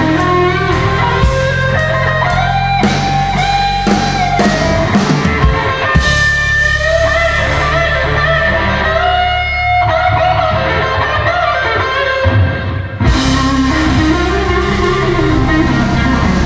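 Blues-rock band playing an instrumental passage: an electric guitar lead with bending, sliding notes over bass and drums. Past the middle the cymbals drop out for a few seconds, and the full band comes back in about three-quarters of the way through.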